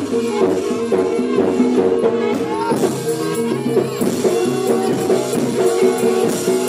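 Live Javanese gamelan music accompanying a barongan dance: an ensemble playing steady pitched notes over percussion.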